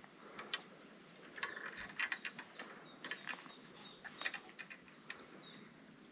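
Faint songbird chirps, with a short thin whistle about five seconds in, over scattered small clicks and ticks from fishing tackle being handled.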